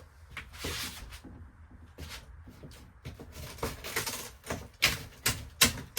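Wall paneling in an old camper being pried and pulled away from its framing, crackling and creaking where it is held by glue. The cracks come faster and louder after about three and a half seconds, ending in several sharp snaps as it tears loose.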